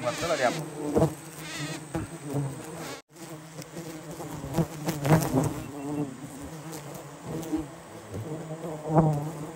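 Swarm of wild giant honeybees (Apis dorsata) buzzing close around, with single bees passing near and their buzz rising and falling, plus a few light knocks. The sound briefly cuts out about three seconds in.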